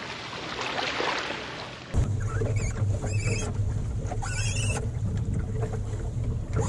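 Small waves washing at a sandy beach, then, after a sudden change about two seconds in, the sound aboard a 15-foot wooden Welsford Navigator yawl under sail: a steady low rumble of wind and water on the hull, with several brief squeaks as lines are hauled.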